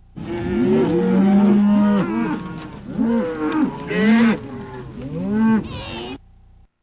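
Several cows mooing in overlapping calls: one long, low moo first, then a run of shorter moos, some rising higher. It all cuts off suddenly near the end.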